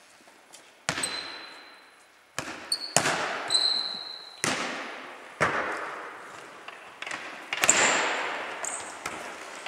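A football being kicked and bouncing on a sports hall's wooden floor during a foot-tennis rally: about six sharp hits, each ringing out in the hall's long echo. Short high-pitched squeaks come between the hits.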